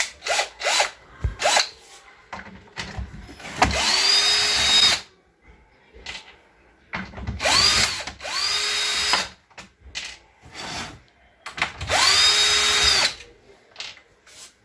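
Cordless power screwdriver with a Torx T20 bit backing out the screws of a washing machine door, in four short runs of about a second each. Each run's pitch rises as the motor spins up, then holds steady. Light clicks of the bit and screws come before the first run.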